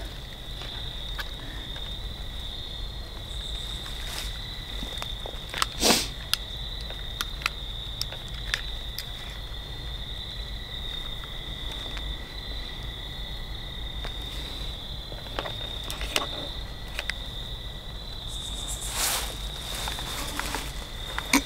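Steady high-pitched trilling of night insects, crickets, with scattered small clicks and rustles of handling. A louder rustle comes about six seconds in and again near the end.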